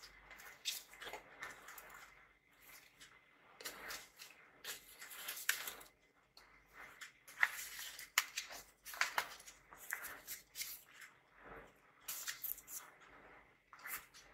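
String being pulled and slid off a kraft-paper-wrapped parcel: irregular scraping and rustling of the string against the paper, with a few sharp clicks as hands handle the package.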